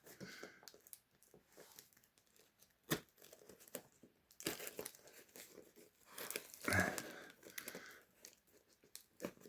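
A parcel being opened by hand: packaging tearing and crinkling in irregular bursts, with a sharp click about three seconds in.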